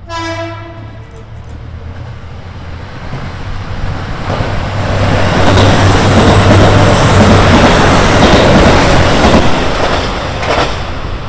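A train passing: a loud rushing noise over a steady low hum, building over several seconds, loudest in the middle, and easing off near the end. A ringing tone dies away in the first second.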